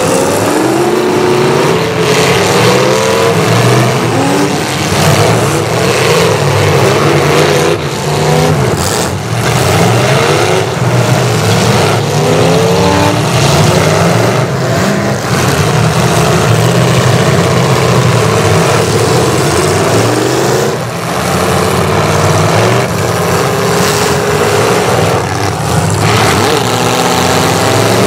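Several demolition derby cars' V8 engines running loud and revving up and down over one another, with occasional bangs of cars colliding.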